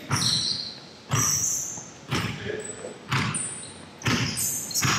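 A ball striking hard surfaces in an echoing indoor court, about once a second, with short high shoe squeaks between the hits.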